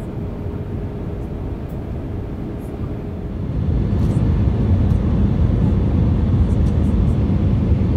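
Airbus A319 cabin noise heard from a window seat over the wing on approach: a steady low rumble of engines and airflow with a faint steady hum. About halfway through the hum drops away and the rumble gets louder.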